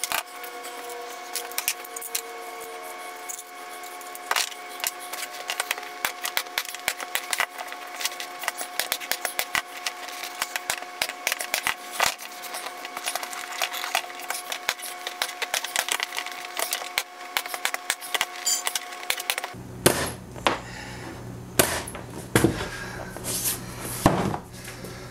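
Manual staple gun driving staples through vinyl into a plywood seat board: a rapid, dense run of sharp clicks and snaps over a steady background tone. About twenty seconds in, this gives way to a few louder knocks from handling the seat.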